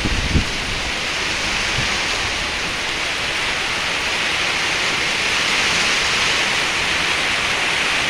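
Heavy monsoon rain pouring steadily onto standing water and trees. There is a brief low rumble in the first half-second.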